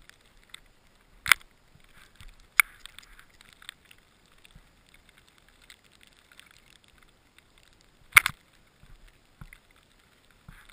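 Sharp knocks and clicks close to a helmet-mounted GoPro camera, three of them loud (about one, two and a half, and eight seconds in), with faint scuffing between.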